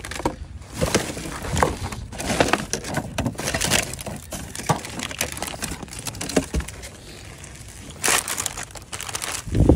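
Plastic bags and plastic-wrapped packaging crinkling and rustling as items are rummaged through and pulled out, with scattered knocks of packages against each other. A louder rustle about eight seconds in and a heavy thump near the end.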